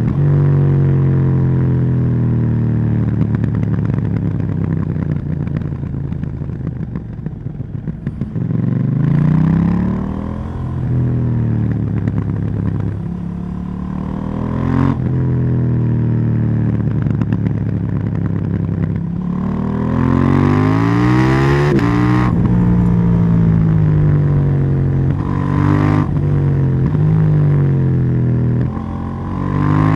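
KTM 790 Duke's parallel-twin engine and exhaust while riding: the revs fall away during the first several seconds. The bike then accelerates hard, with the pitch climbing around 9 s and again around 20 s, and drops sharply at a gear change about 22 s in.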